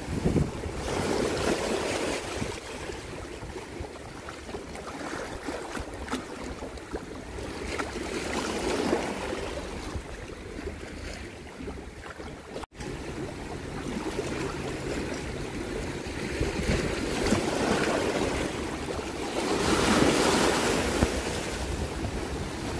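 Wind rumbling on the microphone over choppy seawater lapping, with louder splashing from a swimmer kicking near the end.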